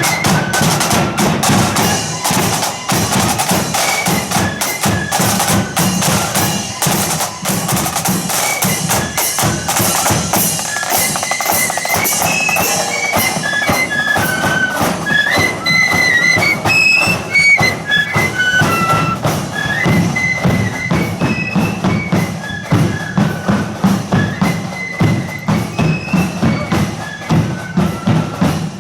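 Marching flute band playing a tune, the flutes carrying a high melody over a dense beat of side drums and bass drum.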